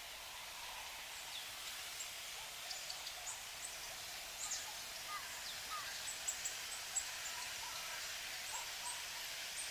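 Woodland ambience: a steady hiss with many short, high chirps and calls from small birds scattered through it.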